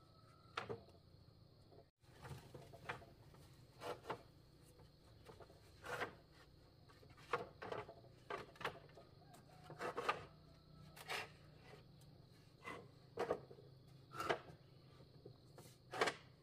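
Light wooden knocks and creaks at irregular intervals, about one or two a second, from a split-bamboo floor and a woven basket being handled and shifted on it.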